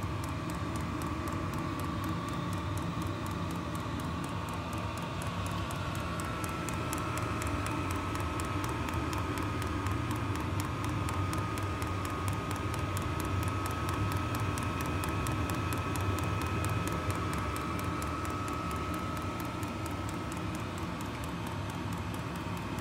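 VEVOR 8 kW diesel air heater running just after lighting on its first start without priming, the fuel having reached the burner. Its blower and burner make a steady rushing noise with a fan whine that steps up slightly in pitch about six seconds in, over a fast, even ticking.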